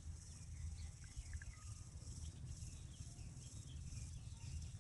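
Quiet open-field ambience: wind rumbling on the microphone under a steady high insect hiss, with a few faint bird chirps.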